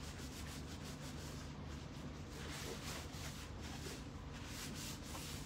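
A cloth rubbed quickly back and forth over the wooden edge of a cabinet, scrubbing off old grease buildup: a run of soft rubbing strokes over a steady low hum.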